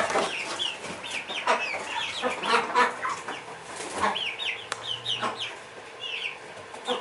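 Flock of young Rhode Island Red pullets peeping and clucking: many short, high chirps that fall in pitch, overlapping one another, with a few sharp knocks among them.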